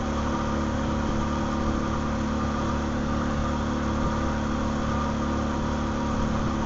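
Pontoon boat's outboard motor running at a steady speed underway, with a steady rush of wind over it.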